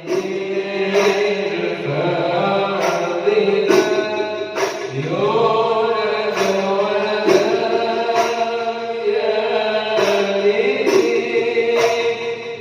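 Islamic devotional shalawat singing: a slow, ornamented melody with long held notes and gliding pitch, over music with a regular percussion strike about once a second.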